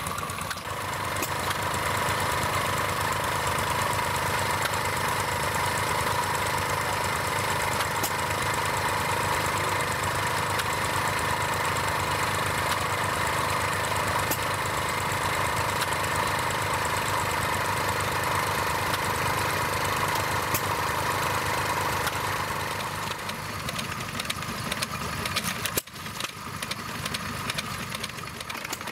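Small vintage stationary engines running steadily, one after another. Near the end the sound turns quieter and more uneven as a different engine is heard.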